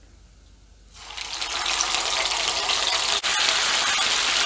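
Curry-marinated chicken pieces going into hot oil in a frying pan: after about a second of quiet, a loud, steady sizzle starts and keeps up, with a brief break about three seconds in.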